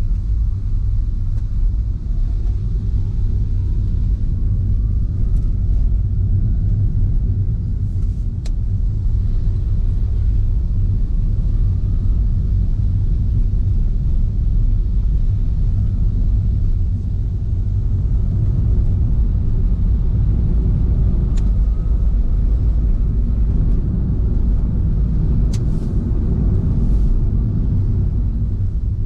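A car driving, with a steady low rumble of road and engine noise. Faint whines rise in pitch a few times, and there are a few light ticks.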